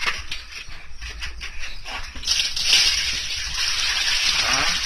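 Light knocks and rattles of a plastic colander and bucket being handled, then, after about two seconds, a steady rush of water pouring out of the tipped plastic bucket onto a wet concrete slab while fish are rinsed.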